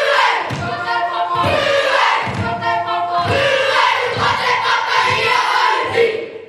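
A children's Māori kapa haka group performing a chant in unison, many voices together with a low thump about once a second. It cuts off suddenly near the end.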